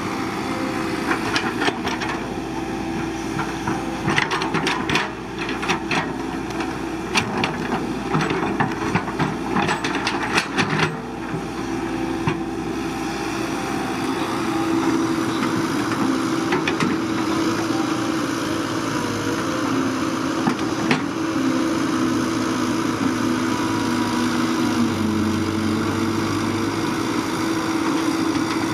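Caterpillar 312BL hydraulic excavator's diesel engine running steadily. A burst of sharp knocks and scrapes during the first ten seconds or so comes from the bucket working rock and soil.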